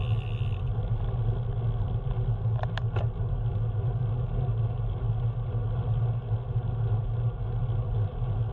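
Car driving at a steady speed: a continuous low engine and road drone with no revving, and two short clicks about three seconds in.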